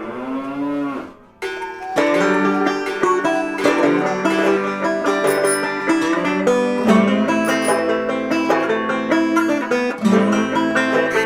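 A drawn-out moo from a cow or water buffalo, its pitch arching and then falling away, ending about a second in. From about two seconds in, background music led by banjo-like plucked strings takes over.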